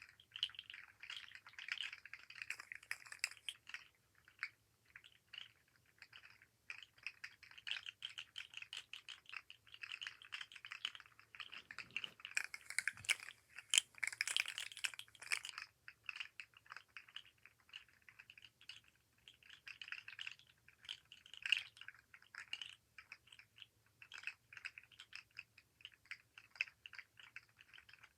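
Articulated fidget slug toy, its jointed segments clicking and rattling as it is wiggled and flexed in the hand: rapid irregular clicks throughout, denser and louder for a few seconds in the middle.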